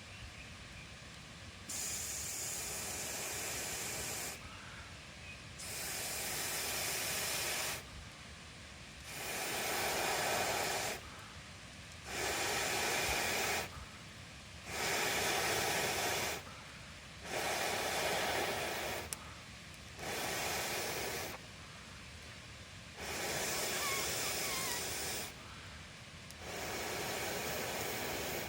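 Air being blown onto a campfire in long breaths: nine hissing blows, each one to two seconds long, coming about every three seconds.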